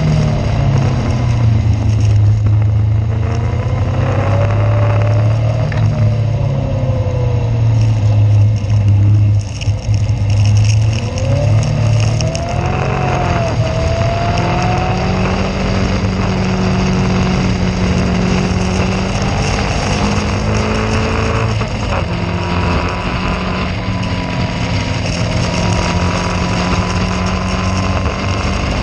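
Caterham race car engine heard onboard, running at a low, changing pitch for about the first twelve seconds, then settling to a steadier, higher note, over a constant rushing noise.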